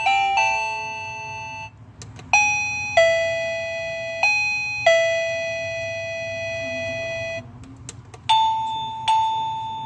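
Doorbell chime playing one of its selectable tunes after another: a quick melody dies away, then a four-note chime with long ringing, fading notes, and another tune starts about a second and a half before the end.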